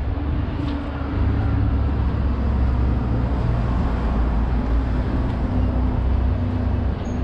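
Road traffic: a motor vehicle's engine running with a steady low hum over road noise, growing louder about a second in.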